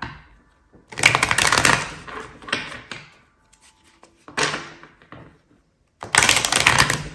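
A deck of tarot cards being shuffled by hand: quick runs of cards clicking and flapping against each other, in several bursts, the longest about a second in and again near the end.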